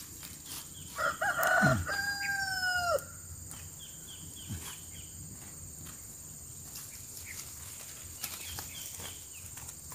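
A rooster crowing once, starting about a second in and lasting about two seconds, ending on a long held note that falls away.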